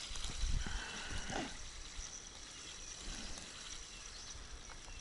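Wind buffeting the microphone in gusts, over a steady rush of water.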